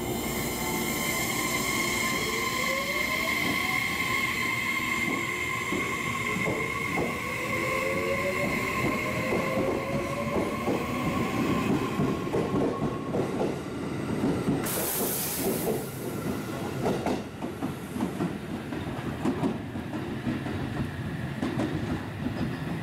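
JR Kyushu 811 series electric train pulling out of the station: its traction motors whine up in pitch as it accelerates, then the wheels clack over the rail joints as the cars run past and away. A brief hiss comes about two-thirds of the way through.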